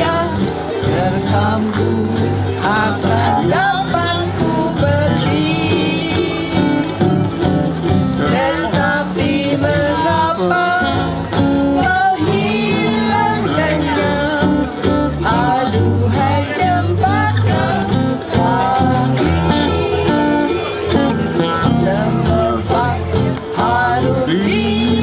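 Ukulele ensemble strumming a song together with an acoustic guitar, with voices singing the melody, amplified through PA speakers.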